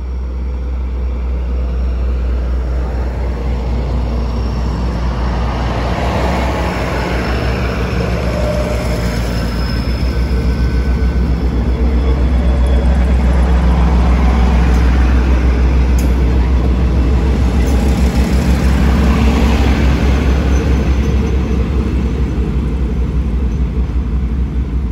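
Thai railway diesel multiple unit pulling out of the station under power and passing close by. Its underfloor diesel engines and the rolling wheels get louder as the cars go past, then ease slightly as the rear car moves away.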